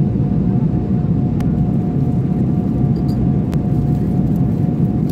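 Airliner cabin noise in flight: a loud, steady low rumble of engines and rushing air with a thin steady tone above it, and a couple of faint clicks.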